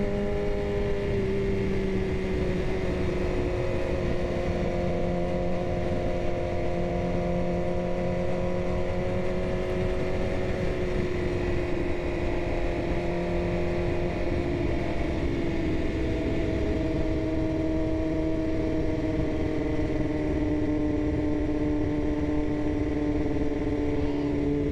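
BMW S1000RR inline-four engine running at a steady throttle on the move, its pitch easing slowly down over the stretch, under a steady rush of wind noise.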